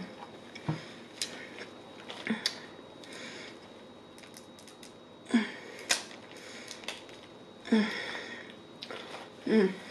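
Crab leg shells cracked and snapped apart by hand: scattered sharp cracks and clicks, with small clusters of them about halfway through and again about three quarters in.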